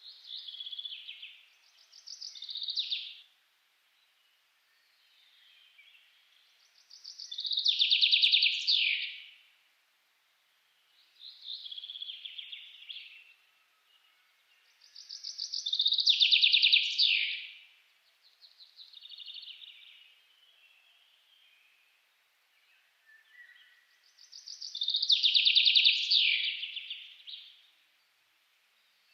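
Forest songbirds singing in trilled phrases a second or two long. Three loud phrases come about eight to nine seconds apart, with quieter phrases in between.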